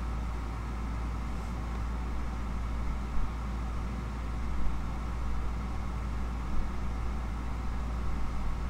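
A steady low hum with a few brief knocks.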